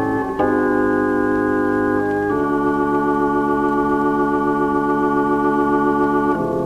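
Organ music playing held chords, which change a little under half a second in, about two seconds later, and again near the end.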